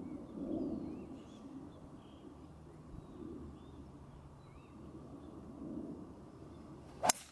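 A golf tee shot: one sharp crack as the club face strikes the teed ball, about seven seconds in. Before it, faint bird chirps and calls.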